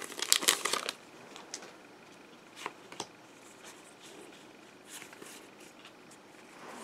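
Foil wrapper of a Pokémon booster pack crinkling and tearing as it is opened for about the first second. After that come a few faint slides and flicks of trading cards being handled.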